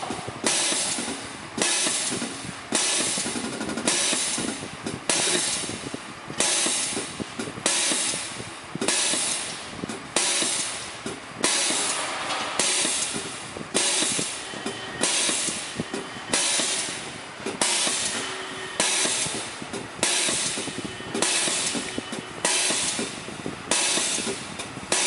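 Diesel fuel injector on a pop-test bench repeatedly firing into the spray chamber, a sharp hissing spray burst about once a second, each fading before the next. The tester judges that it opens at the wrong pressure and does not build pressure correctly.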